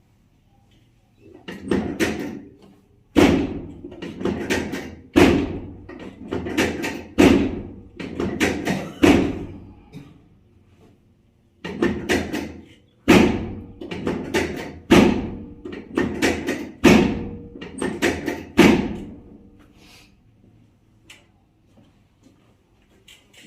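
A rapid series of heavy thumps, roughly two a second, in two runs with a break about ten seconds in, fading out near the end.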